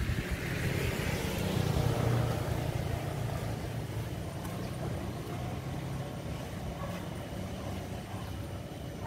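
A motor vehicle passing along the street, its engine and tyre noise loudest about two seconds in, then slowly fading away.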